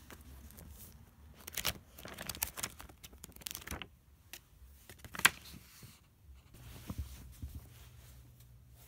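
Paper and cardboard journal pages being riffled and handled: a quick run of papery flicks and rustles, with one sharp slap about five seconds in, then quieter handling.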